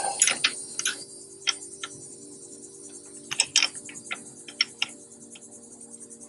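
Irregular metallic clicks and ticks of a wrench working a fuel-pump mounting bolt loose on a 1990 Jeep Wrangler's straight-six engine, over a faint steady hum.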